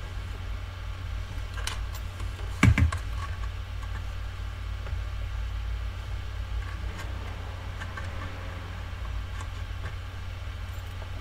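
Light clicks and one sharp knock, about two and a half seconds in, from the plastic connectors of a diagnostic cable's 25-pin plug being handled and lined up, over a steady low hum.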